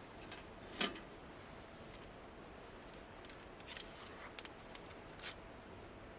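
A few short scrapes and clicks of something being handled: one longer scrape about a second in, then several quick clicks near the end.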